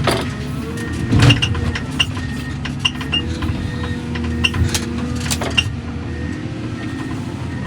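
Diesel engine of heavy earthmoving equipment running steadily while working a debris pile, with repeated clanks and knocks of debris being moved.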